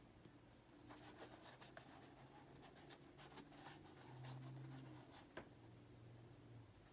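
Faint light scratching and clicking of packaging being handled, over a low steady hum.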